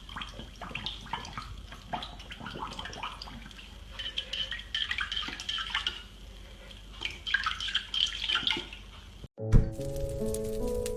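Running, splashing water with irregular drips and clicks. About nine seconds in it cuts off and gives way to music.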